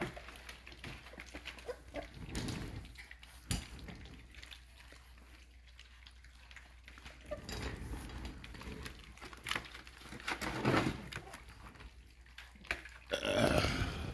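A litter of American bully puppies making small animal noises in short, scattered bursts, the loudest just before the end.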